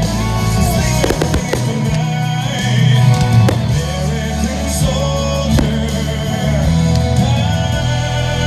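Show music played loud over a fireworks display, with firework bangs and crackles scattered through it.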